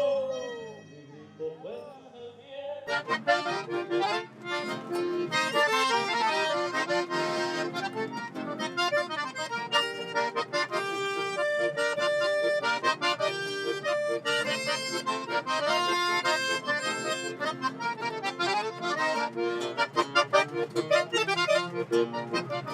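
Accordion-led chamamé music, coming in about three seconds in and playing on with quick runs of notes over held chords.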